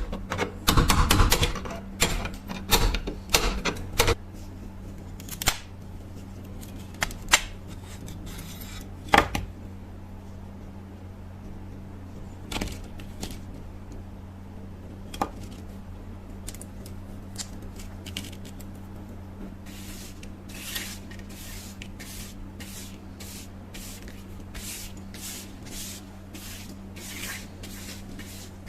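Hand work on an old knife: a quick flurry of clicks and knocks, then scattered single taps, and from about two-thirds of the way in a regular run of short strokes about two a second, over a low steady hum.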